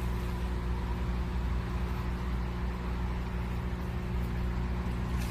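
Steady low mechanical hum of a running machine, even in pitch and level throughout.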